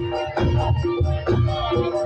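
Live Javanese dance accompaniment music: a deep beat roughly once a second under a repeating melodic phrase of sustained notes.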